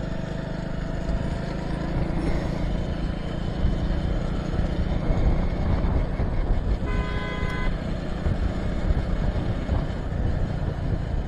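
Steady engine and road noise of a motorcycle on the move, with a vehicle horn sounding once, briefly, a little past the middle.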